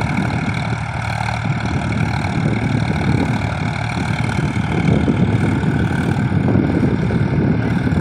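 Tractor engine running steadily under load while it pulls a tilling implement across a field.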